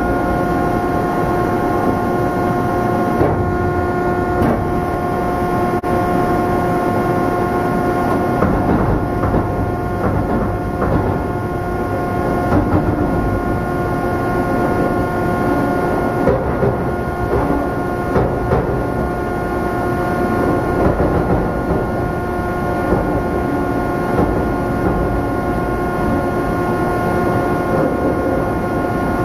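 Deslagging (slag-skimming) machine working over a ladle of molten iron in a steelworks: a loud, steady machine hum of several steady tones over dense plant noise, with scattered knocks and scrapes as the skimmer blade works the slag.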